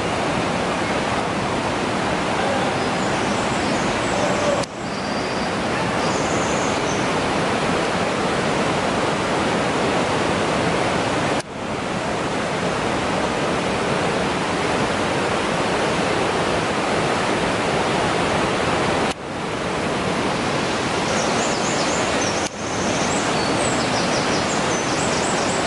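Rushing water of the Belaya River pouring through the narrow Khadzhokh gorge: a loud, steady hiss of whitewater. It cuts out for an instant four times.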